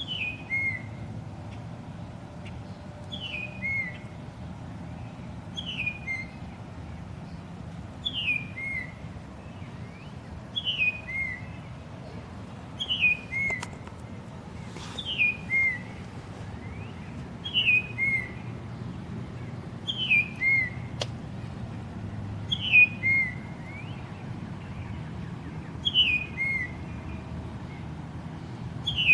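Bald eagle whistle call: a high whistled note falling in pitch, followed by a short lower note, the pair repeating evenly about every two and a half seconds, about a dozen times.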